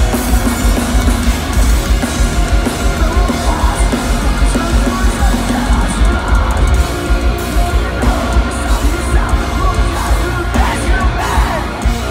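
Metalcore band playing live and loud: drums and distorted guitars and bass, with a singer's vocals over the band.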